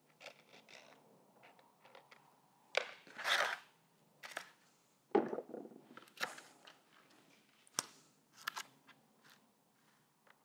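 Scratchy strokes and light scrapes of a charcoal stick worked over a painting's gritty, joint-compound-textured paper, with scattered small clicks. A louder scrape comes about three seconds in, and a dull knock about five seconds in.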